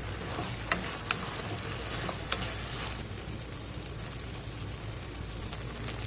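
Potatoes sizzling as they fry in a pan, with a few sharp clicks in the first half.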